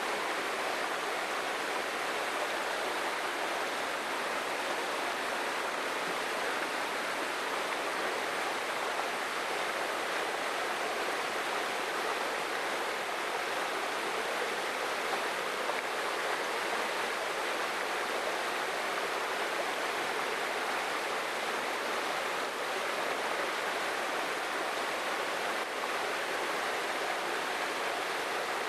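Small jungle waterfall, water falling and rushing over rocks in a steady hiss.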